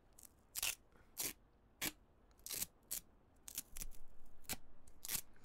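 Adhesive tape being pulled off the roll and torn, a series of about nine short, sharp ripping sounds.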